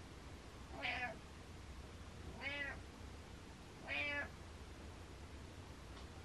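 Orange-and-white domestic cat meowing: three short meows about a second and a half apart.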